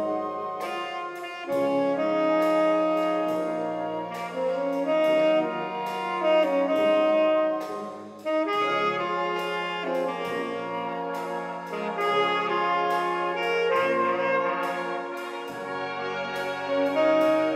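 Tenor saxophone solo with a concert wind band accompanying in sustained brass chords, and sharp drum or cymbal hits at intervals.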